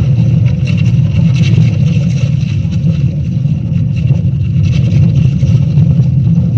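Deep, steady earthquake rumble sound effect played loud through the show's loudspeakers, with faint scattered crackles on top.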